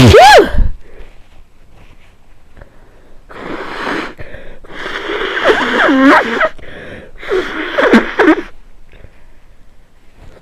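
A person with a cold sneezes loudly once at the start. About three seconds later come three long, noisy nose blows, the middle one the longest and loudest.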